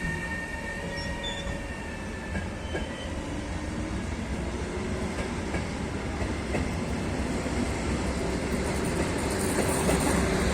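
Electric locomotive-hauled regional train running on the station tracks: a steady rumble of wheels on rail, with a few high squealing tones that fade in the first seconds and the rumble growing louder toward the end.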